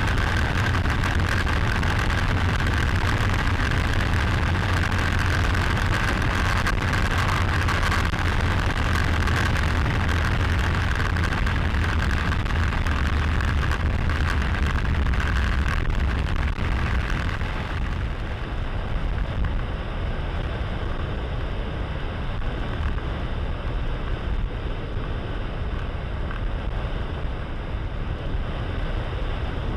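Cessna 140's engine and propeller droning steadily in flight, heard with wind rush from a camera mounted under the wing. A little over halfway through the sound turns slightly quieter and duller.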